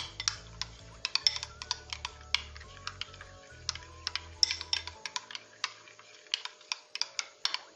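A spoon clinking and scraping against a glass bowl while stirring cream and mayonnaise together: irregular sharp clicks, several a second.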